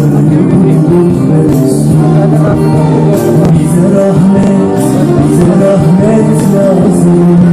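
Male vocalist singing a Turkish ezgi (devotional song) live into a handheld microphone over instrumental accompaniment.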